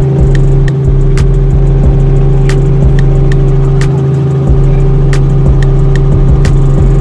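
Steady, loud engine drone heard from inside the cabin of a small aircraft in flight, holding one unchanging pitch, with scattered light clicks.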